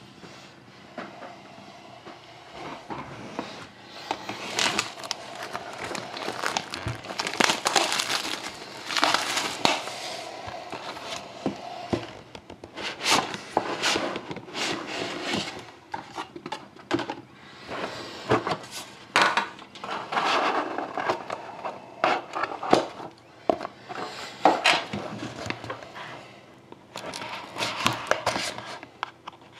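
Plastic shrink-wrap being torn and crumpled off a sealed trading-card box, in uneven crackling bursts, with cardboard box handling in between. Near the end a blade slits the paper seal on the inner box.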